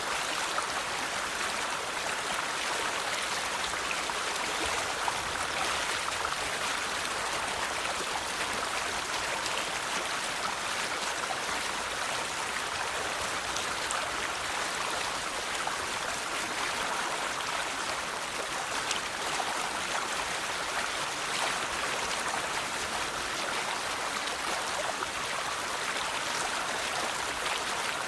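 River water flowing steadily over rocks, a continuous rushing babble with small splashes.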